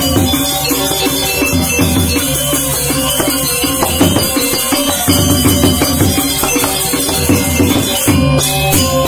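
Balinese gamelan gong ensemble playing: bronze metallophones ringing in rapid strokes over low gong tones, with drums and the bright jingling of small ceng-ceng cymbals.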